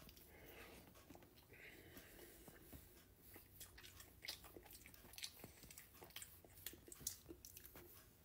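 A person chewing a mouthful of breakfast Hot Pocket, close to the microphone: faint, irregular soft clicks and smacks of chewing.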